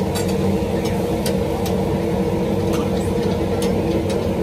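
Steady mechanical hum with several held tones and an even level, like a running engine or machine, with scattered light clicks over it.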